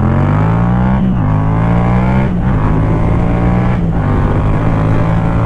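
Yamaha MT-07 parallel-twin engine through a Black Widow carbon aftermarket exhaust, accelerating hard: the revs climb, drop at an upshift about a second in, climb again, drop at a second upshift a little past two seconds, then hold nearly steady.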